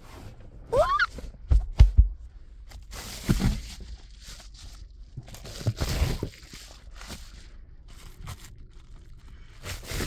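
Bubble-foil reflective window covers being pulled down off a car's windows: rustling and crinkling in several bursts, with a few heavy knocks against the car interior about two seconds in.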